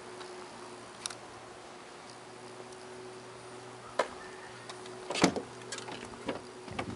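A series of clicks and knocks as a car's driver's door is unlatched and swung open, the loudest about five seconds in, over a faint steady hum.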